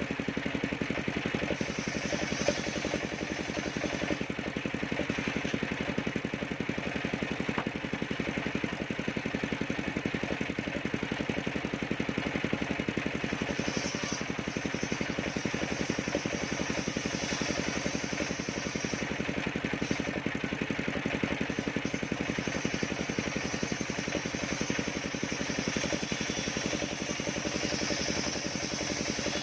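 Engine of a portable circular sawmill running steadily, with a higher hiss that comes and goes several times above the engine note.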